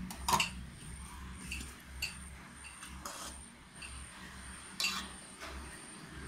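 Metal ladle clinking against the side of an aluminium cooking pot while boiling soup is stirred: a handful of short, sharp clinks, the loudest about a third of a second in, over a steady low hum.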